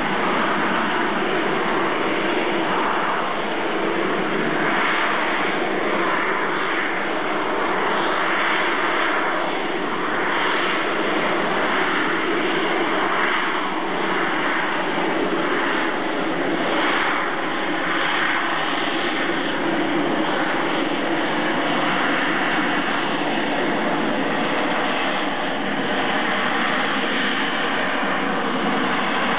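Harrier GR9 jump jet hovering, its Rolls-Royce Pegasus vectored-thrust turbofan running at steady high power. It makes a dense rushing jet noise with faint whining tones, swelling and fading every second or two as the aircraft shifts in the hover.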